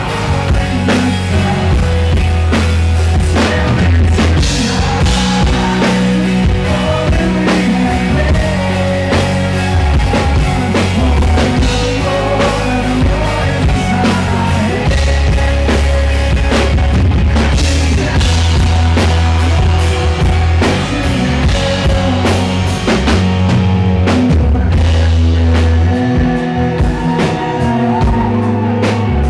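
Live rock band playing loudly: drum kit, electric guitars and bass under a male lead vocal.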